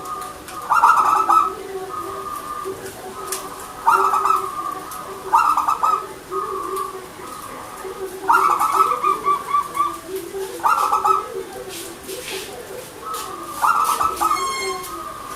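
Zebra dove (perkutut) cooing: loud, rippling phrases that repeat every two to three seconds, each with a brief held note between them. A softer, lower cooing runs on underneath throughout.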